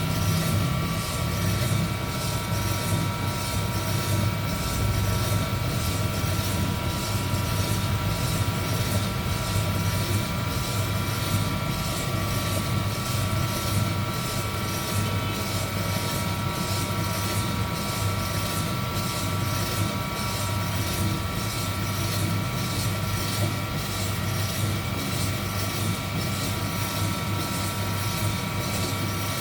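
Heat gun blowing steadily in a DIY coffee roaster, a constant whirring rush with a steady high whine from its fan motor.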